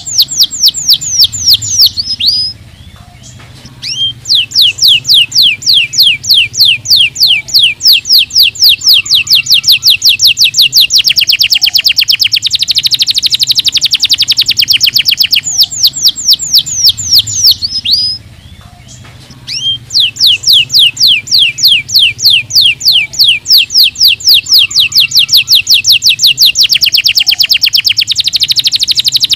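Domestic canary singing long, fast trills of repeated high, downward-sweeping notes, broken by two short pauses, about two and a half seconds in and about eighteen seconds in.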